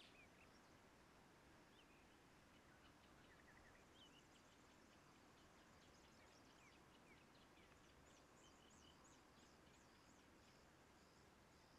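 Near silence: a faint steady hiss with faint high bird chirps and twitters scattered through it, busier in the second half.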